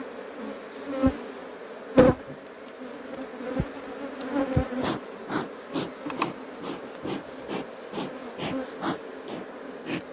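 Honey bees buzzing in a steady hum around an opened hive, with scattered sharp knocks and clicks throughout, the loudest about two seconds in.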